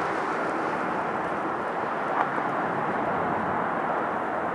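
Boeing 747-8F freighter's four GEnx-2B turbofan engines heard from the ground as steady, even jet noise while the aircraft climbs out after takeoff.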